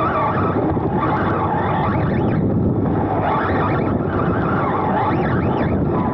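Onboard sound of a Serpent SRX2 2wd electric RC buggy racing: the motor and drivetrain whine rises and falls again and again with the throttle, over a steady rumble of wind on the microphone and the car running over the turf.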